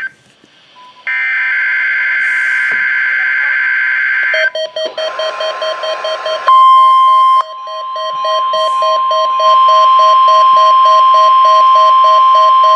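NOAA Weather Radio weekly test signal: a digital SAME header burst, a steady screeching data tone, followed by choppy tones and then a long steady electronic tone with a pulsing beep underneath. A fire department pager test overlaps it.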